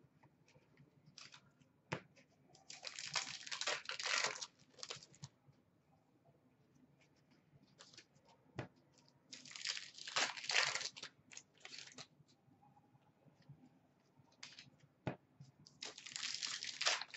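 Hockey card packs being torn open, their wrappers crinkling in three bursts of a few seconds each. A single sharp tick comes just before each burst.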